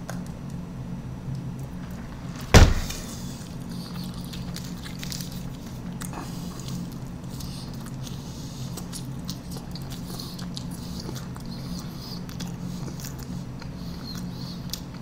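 Quiet eating at a table over a steady low hum: faint clicks of chewing and paper wrapper rustle, with one sharp knock about two and a half seconds in as a plastic drink cup is set down on the tabletop.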